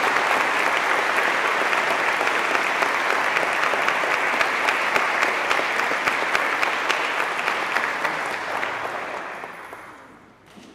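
Audience applauding steadily, a dense patter of many hands clapping, which dies away over the last couple of seconds.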